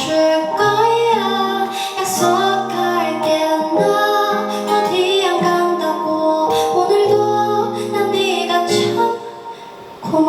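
Live music: a woman singing a wordless melody over plucked guitar. It drops away about nine seconds in, then one loud final chord comes near the end.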